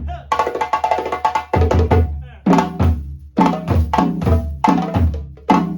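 Balafon and hand drums playing a repeating rhythmic phrase of struck wooden notes, with a deep drum stroke opening each phrase about every second.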